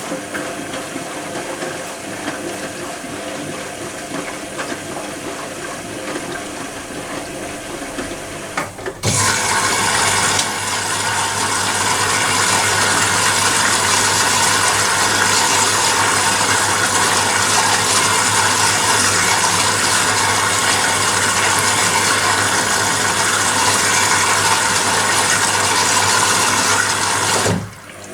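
Privileg Compakt 92 washing machine running. About nine seconds in, water starts rushing loudly through the machine over a steady low hum, then drops away briefly near the end.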